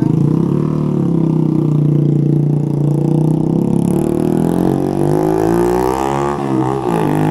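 Kawasaki Z125 Pro's single-cylinder engine running through an aftermarket exhaust: a steady low drone for the first few seconds, then revving, the pitch rising and falling several times.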